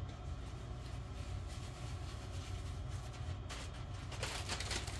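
Steady low background hum with a few faint clicks, then, near the end, the crinkling of a plastic bag of shredded cheese being handled.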